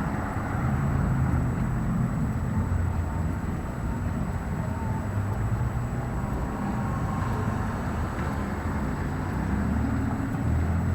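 Street traffic: car engines running and passing in a steady hum, with a low engine sound growing louder near the end.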